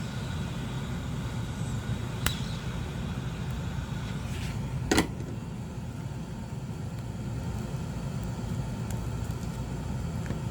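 Steady low background rumble, with two short sharp clicks about two and five seconds in.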